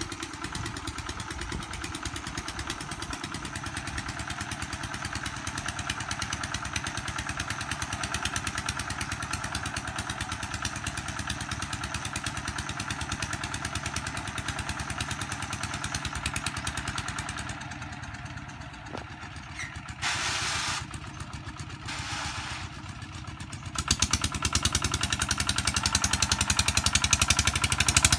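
Single-cylinder diesel engine of a công nông farm truck running with a steady, fast chugging beat. It falls quieter for a few seconds past the middle, then comes back louder near the end.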